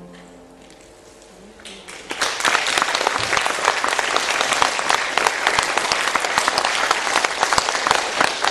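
A brief lull after the music stops, then audience applause breaks out about two seconds in and goes on steadily.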